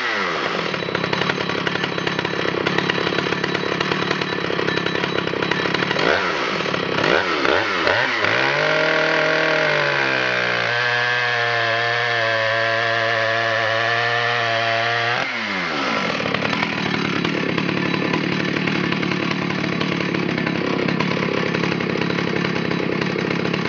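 Husqvarna 2100 XP two-stroke chainsaw at full throttle cutting through a log, the revs dipping and recovering several times as the chain bites, then holding steady through a long cut. About 15 seconds in the throttle is released and the revs fall away, leaving a steady noise with no clear engine pitch.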